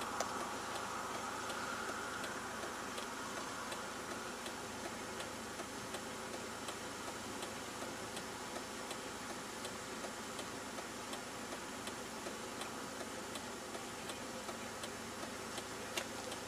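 Faint, even ticking at a steady pace over a low steady hum, with one louder click near the end.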